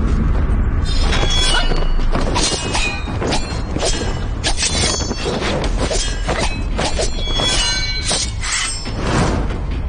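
Drama action-scene sound effects: a quick series of sharp hits and short metallic clangs that ring briefly, over background music and a steady low rumble.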